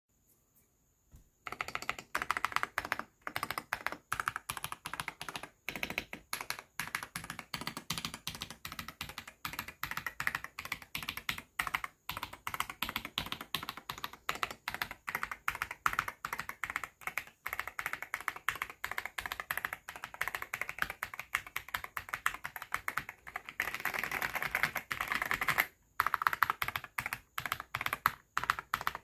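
Typing on a Keychron V6 Max mechanical keyboard fitted with Akko Cream Blue Pro V3 switches and KSA-profile keycaps: fast, continuous keystrokes starting about a second and a half in, with a denser flurry of rapid presses near the end.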